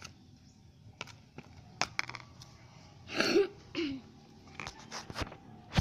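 Slime being kneaded and stretched by hand, giving a series of sharp wet clicks and snaps. A short voice-like sound comes about three seconds in.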